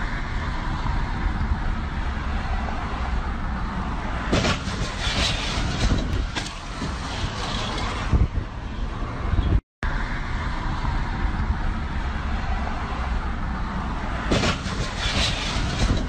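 Steady road and wind rumble of a car driving on a highway, heaviest in the low end, with a few short louder noisy bursts. The same few seconds play twice, with a brief dropout between them.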